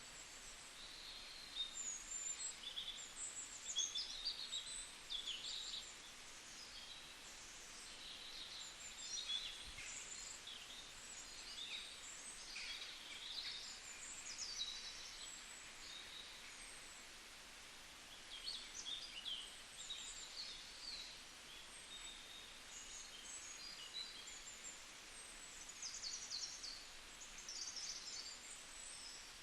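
Birds chirping and calling in many short, high notes over a steady background hiss, busiest in the first few seconds and again near the end.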